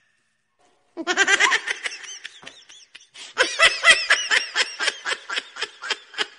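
A litter of puppies yelping and squealing over one another in quick, high-pitched cries, starting about a second in and thinning out toward the end.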